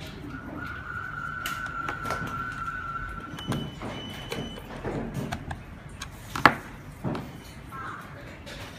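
Scattered small clicks and knocks of parts being handled, the loudest a single sharp click about six and a half seconds in, over a steady high tone that lasts about two and a half seconds near the start.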